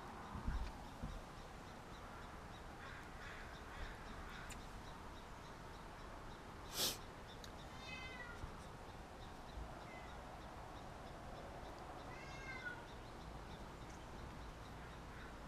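Faint outdoor background with a few animal calls: a single short harsh call about halfway through, then two short arching calls, one soon after and one late on. A couple of low bumps near the start.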